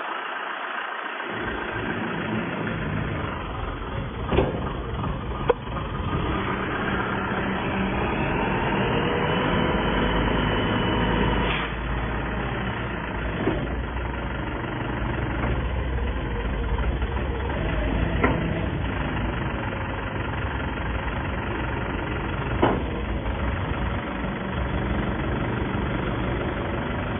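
Backhoe loader's diesel engine running, rising in pitch and getting louder for a few seconds about a third of the way in, then settling back. Several sharp metallic clanks sound over it.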